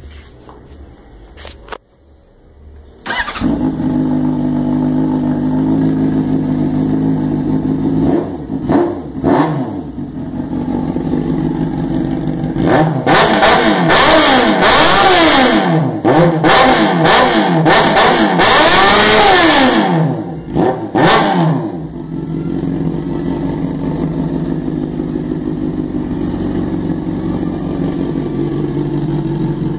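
Honda CBR 600F's inline-four engine, breathing through a 4-into-1 exhaust with an aftermarket Coyote sport muffler, starting about three seconds in and idling steadily. It is then revved again and again in quick blips that rise and fall in pitch, and settles back to a steady idle.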